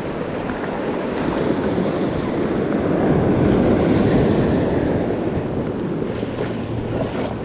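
Ocean surf breaking and washing up the beach, with one wave swelling to its loudest about halfway through. Wind buffets the microphone.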